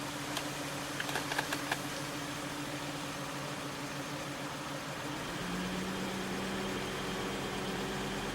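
The 2001 Volvo V70 T5's turbocharged five-cylinder engine running steadily, with a quick cluster of clicks about a second in and a second steady hum joining about five seconds in. The engine's misfire is put down to failing ignition coils.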